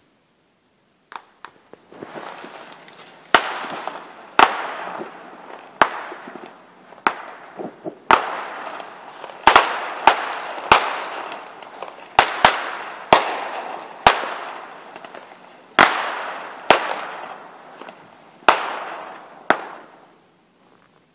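Fireworks going off in quick succession: about sixteen sharp bangs, roughly one a second, each trailing off in a crackling hiss. They start about two seconds in and die away shortly before the end.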